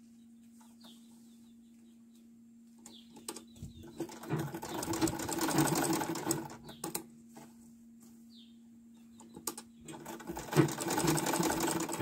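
Old black Gloria sewing machine stitching through fabric in two quick runs: the first starts about four seconds in and lasts about three seconds, the second starts near the end.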